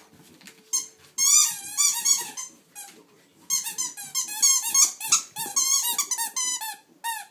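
A squeaky dog toy squeaked rapidly again and again as a Cardigan Welsh corgi chews on it, in quick runs of short squeaks; the squeaking starts about a second in, pauses briefly, then resumes in a longer run.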